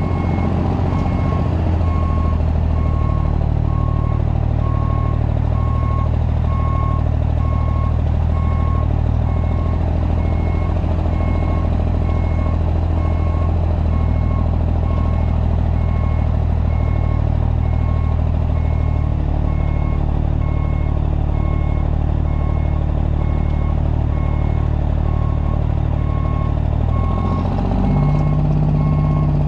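Unmuffled diesel truck engine running steadily while the rig backs up, with a reverse alarm beeping at an even pace over it. The engine note changes near the end.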